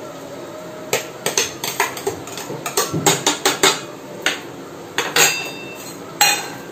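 A cooking utensil knocking and clinking against a pan: a quick run of sharp knocks, then a few more spaced out, as an egg is added to noodles and stirred in.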